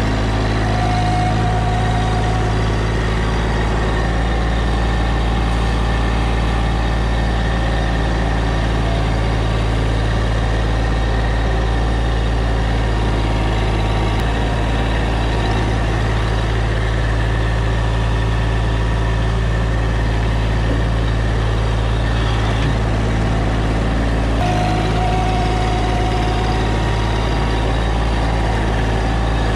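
An engine running steadily at an even speed, with a brief change in tone about 24 seconds in.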